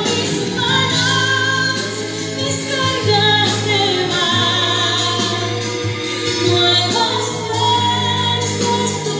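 A woman singing a Spanish-language worship song through a handheld microphone over amplified accompaniment with a steady bass and beat. Her held notes waver with vibrato.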